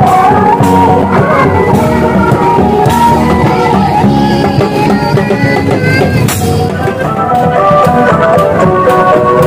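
Loud music with drums and a melody.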